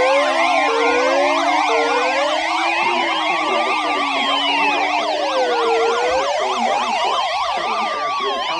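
Electronic siren sounds: a slow wail rising and falling about every four seconds layered over a fast yelp that warbles several times a second. Under them, a weather radio's steady alert tone stops about three seconds in.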